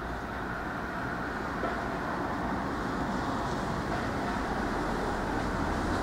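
Road traffic moving off over a level crossing once the barriers have lifted: cars and a van driving past on a wet road, engines and tyre hiss, growing louder as the van draws close near the end.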